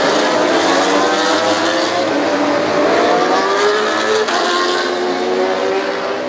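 MotoGP racing motorcycles passing one after another on the warm-up lap, engine notes rising in pitch as they accelerate along the straight.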